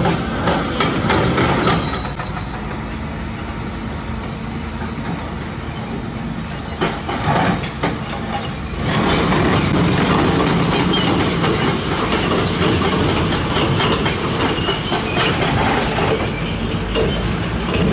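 Heavy hydraulic excavator's diesel engine running under load, with scattered metallic clanks and knocks. It runs somewhat quieter at first and gets louder and steadier from about halfway through.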